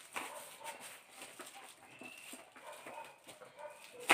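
Plastic wrapping around a shoe box crinkling and rustling in many small clicks as it is cut and pulled open with a knife, with a sharp knock right at the end.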